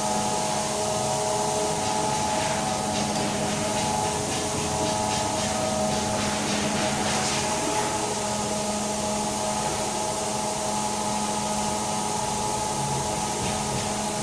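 Vacuum cleaner running steadily: a constant rush of air over a steady motor hum and whine, with some light scratchy rubbing through the middle.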